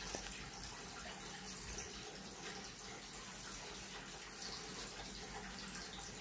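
Soft bristle brush sweeping leftover coffee grounds out of a Kinu M47 hand grinder's stainless steel body: faint, irregular swishes over a steady background hiss.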